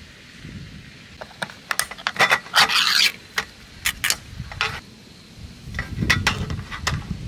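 A spoon scraping soft food out of a small plastic tub onto a plastic dish, heard as a run of sharp clicks and short scrapes with a longer rasping scrape a little before the midpoint, then a few dull knocks near the end.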